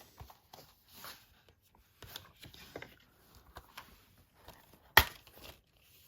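Blu-ray cases and cardboard packaging being handled: scattered light rustles and small taps, with one sharp click about five seconds in.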